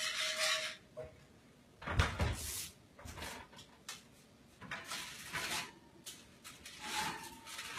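Electric oven door pulled open with a low thump about two seconds in, followed by scattered metal clanks and scrapes of the oven rack and a pan as it is drawn out.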